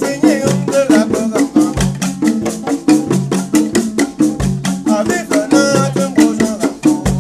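Dance music with a fast, even beat of rattle-like percussion strikes over low pitched notes, and brief vocal calls near the start and again about five and a half seconds in.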